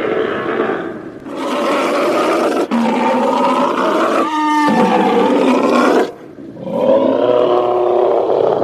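Monster roar sound effect: long, loud growling roars that grunt and scream, broken by short pauses about a second in and again near six seconds in.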